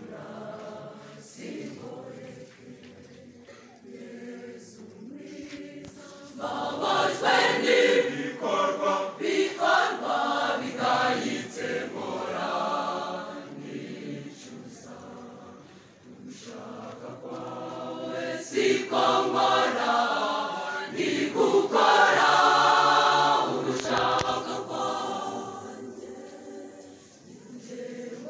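Large mixed church choir of young women and men singing a Kinyarwanda hymn. The singing swells to two loud passages and falls quieter between them.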